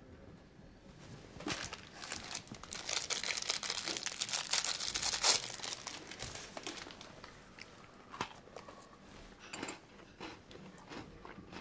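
Paper crinkling and rustling: a few seconds of dense crackles, loudest in the middle, followed by a few scattered ticks.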